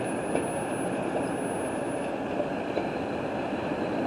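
Steady outdoor city background noise, with a few faint clicks.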